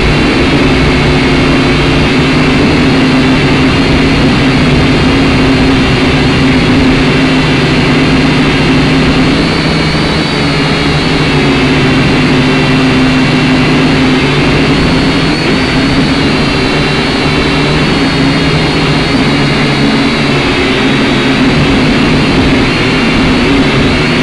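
Drone's rotors and motors whirring steadily in flight, loud and close because the drone's own onboard camera microphone picks them up; the pitch wavers slightly as the drone manoeuvres.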